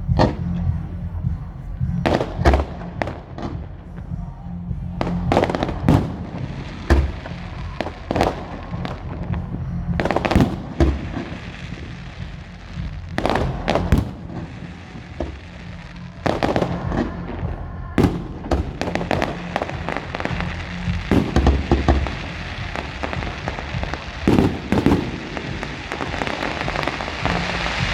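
Firework display: aerial shells bursting in irregular clusters of sharp bangs and crackles, sometimes several a second, over a steady low rumble. Near the end a hissing crackle swells up.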